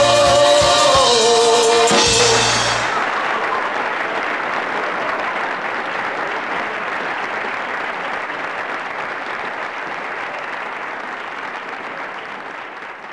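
Live band ending a song on a held sung note with a final drum hit about two seconds in. Audience applause follows and slowly fades away.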